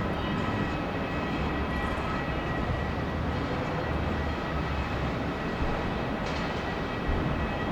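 Embraer E190 jet's twin turbofan engines running with a steady whine over a heavy rumble, with strong wind buffeting the microphone.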